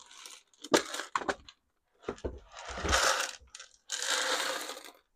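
Plastic clicks and knocks as the Hercules 20V cordless wet/dry vacuum's housing is unlatched and its collection bin lifted out. Then dried corn kernels pour and rattle out of the plastic bin onto the bench top in two clattering spills.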